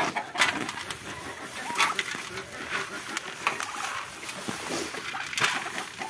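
A hungry flock of chickens and Muscovy ducks calling and milling around, with short scattered calls; the birds are noisy because they are waiting to be fed.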